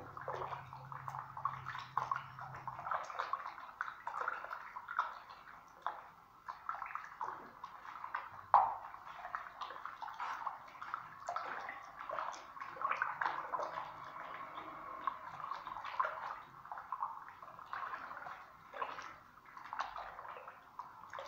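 Bare hand stirring and squelching a thin wet acrylic screeding putty mix in a plastic bucket: a continuous, irregular sloshing with small wet splashes and clicks.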